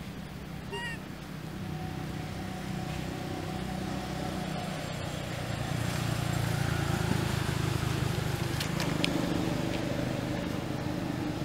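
A motor vehicle's engine running with a steady low hum that grows louder over the first several seconds and then holds. A brief high squeak comes about a second in, and a few sharp clicks come near the end.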